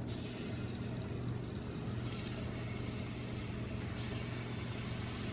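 Yorkshire pudding batter sizzling as it is poured into hot oil in a metal muffin tin: a steady hiss with faint crackles, over a steady low hum. The sizzle is the sign that the oil is hot enough.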